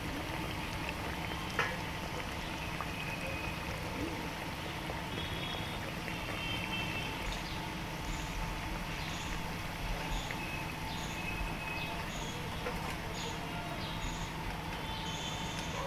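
Sabudana vadas deep-frying in hot oil in a metal kadhai: a steady sizzling and bubbling, with one short knock about one and a half seconds in.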